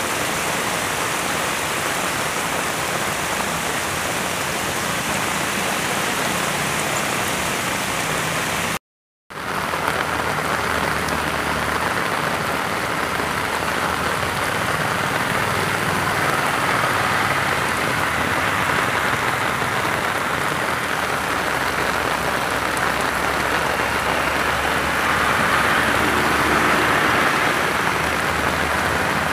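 Heavy rain pouring steadily onto a flooded street, a constant hiss of rain and running water, broken once by a brief silence about nine seconds in.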